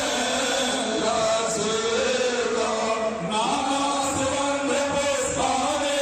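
Hindu devotional chanting at a Durga Puja: a voice chanting in long held notes that slide up and down in pitch, with no pause.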